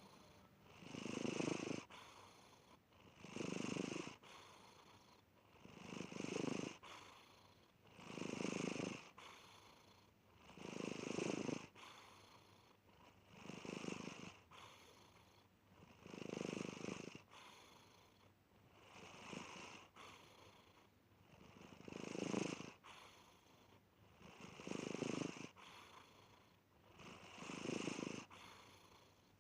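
A sleeping cat's rattling purr, rising in about eleven even rumbles, one with each breath, roughly every two and a half to three seconds.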